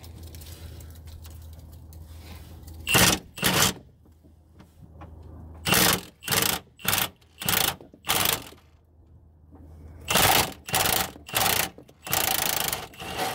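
Milwaukee impact wrench on a long extension hammering at a bolt under the car in about ten short bursts, in three groups with pauses between, the last burst longer.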